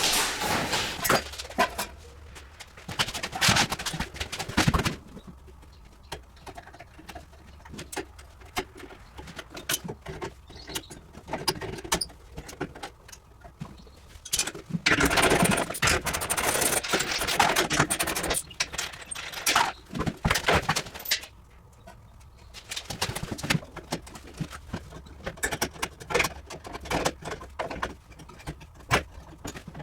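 Clatter of hand work on metal refrigeration parts: scattered clicks, knocks and rattles, with a louder stretch of steady noise about halfway through.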